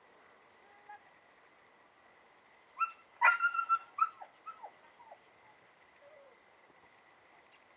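Young Belgian Malinois whining and yelping in a quick run of short, high calls, several sliding down in pitch, lasting about two seconds in the middle.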